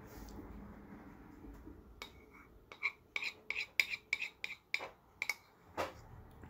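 Spoon scraping and clinking in a ceramic bowl: a quick run of short scrapes and taps starting about two seconds in, several of them ringing briefly.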